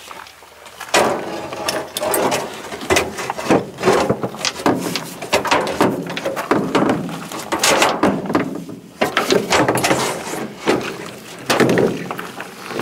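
Irregular knocks, clunks and rustling from hands fitting an electric landing-gear jack motor and its wiring into a fifth wheel's front compartment.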